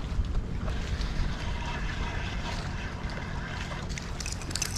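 A spinning reel being cranked as a small jack crevalle is reeled in, under steady wind rumble on the microphone and water sounds. From about four seconds in comes a run of short, sharp splashes as the fish thrashes at the surface.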